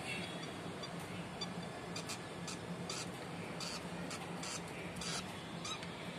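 Rosy-faced lovebirds giving short, high squeaky chirps, a dozen or so at irregular intervals, over a steady low hum.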